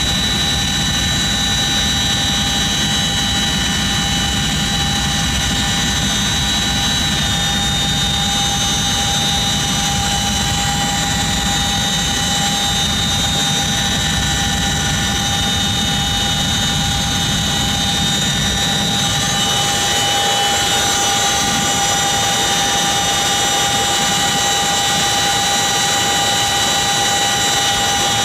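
CH-47 Chinook's twin turboshaft engines and tandem rotors heard from inside the cabin: a steady high turbine and gearbox whine over a dense low rumble. About two-thirds of the way through, the low rumble drops away while the whine continues, as the helicopter settles onto the ground.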